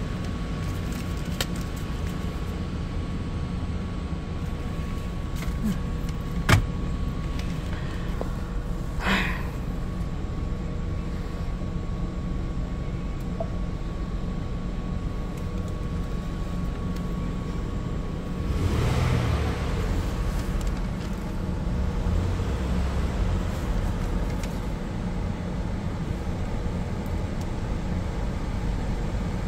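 Ford car's engine idling steadily, heard from inside the cabin, after the car has sat unused for a month. A sharp click about six seconds in, a short hiss a few seconds later, and the sound swells from about two-thirds of the way through.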